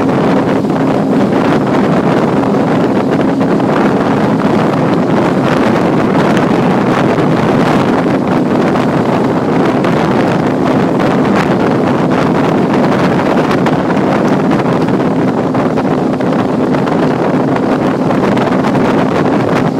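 Loud, steady wind buffeting the microphone, with the even drone of a coaching launch's outboard motor and water rushing past the hull underneath.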